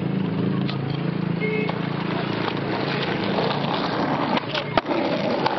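Skateboard wheels rolling over rough concrete in a steady rumble, with sharp clacks of the board striking the ledge near the end.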